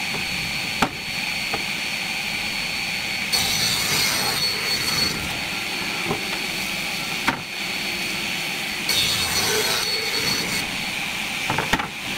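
Sliding table saw running with a steady high whine from its spinning circular blade. Twice it cuts through a wooden board in louder, hissier passes of a second or two. A few sharp knocks come from the board being handled on the carriage.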